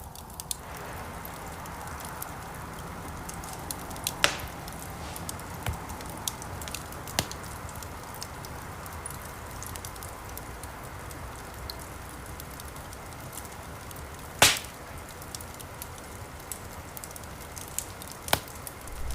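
Wood campfire burning with a steady hiss, many small crackles and a few sharp pops, the loudest about fourteen seconds in.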